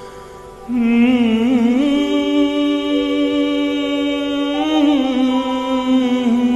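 Slow song introduction: a steady sustained drone, joined about a second in by a louder melody line of long held notes that waver slightly in pitch.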